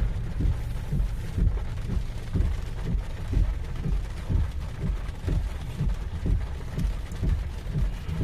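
Typhoon wind and heavy rain: gusts buffet the microphone in irregular low rumbling thumps over a steady hiss of rain.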